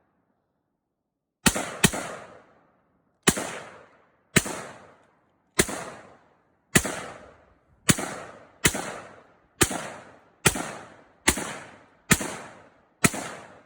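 Diamondback DB15 AR-15 rifle firing 5.56 rounds semi-automatically: thirteen single shots at roughly one a second, the first two close together, each followed by a short rolling echo.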